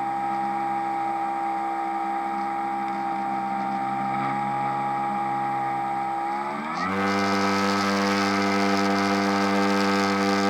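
Radio-controlled model airplane's motor running at a steady speed, then throttled up sharply about seven seconds in and holding the higher, louder pitch.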